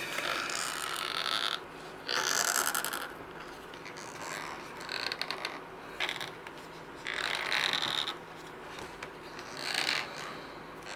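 Flexible TPE parts being pried and peeled off rigid 3D-printed plates by hand: five rasping stretches, each about a second long or less, with short quieter gaps between them.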